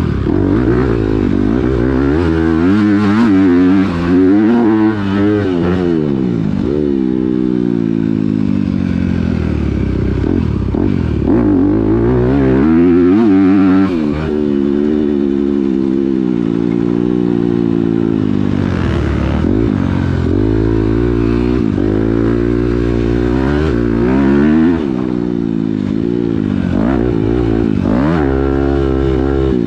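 Honda four-stroke motocross bike's engine heard up close from on the bike, revving up and dropping back over and over as the rider accelerates, shifts and brakes around the track.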